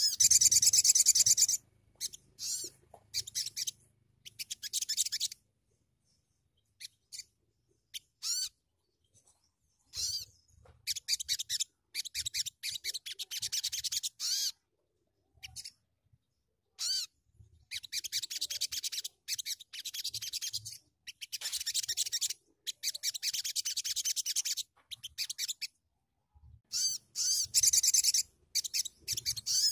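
A sunbird (sogon) singing in bouts of fast, very high-pitched chittering trills. Each bout lasts from about a second to a few seconds, with short silent gaps between them.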